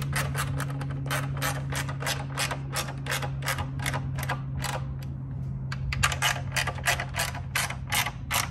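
Socket ratchet clicking steadily as a bolt is run down, about four or five clicks a second, with a brief pause a little past halfway.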